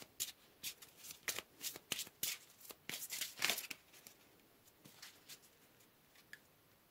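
Oracle card deck being shuffled by hand: a quick run of card snaps and flicks for about four seconds, thinning to a few faint taps as a card is drawn and laid down.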